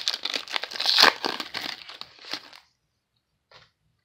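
Wrapper of a football trading-card pack being torn open and crinkled, stopping about two and a half seconds in, followed by a brief rustle of cards near the end.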